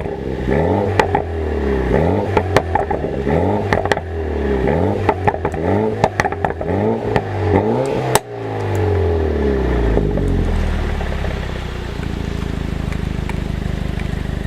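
BMW 420i's N20 four-cylinder engine revved in quick blips about once a second, with sharp pops and crackles from the exhaust each time the revs drop, the work of a tuned DME 'misfiring' (pops-and-bangs) map. About eight seconds in there is a loud bang, then the revs fall away and the engine settles into a steady idle.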